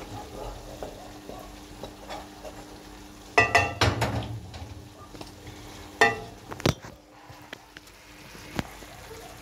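A spoon stirring spaghetti and knocking against a metal pot, with clattering clinks about three and a half seconds in and again around six seconds, over a soft frying sizzle.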